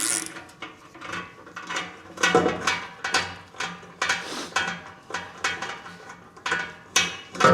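Hand ratchet wrench clicking in quick repeated strokes, about three a second, backing out the bolts that hold a drive cover in place.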